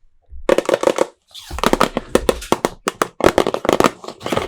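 Plastic toy packaging crinkling and clicking as it is handled and opened, a quick run of sharp crackles with short pauses.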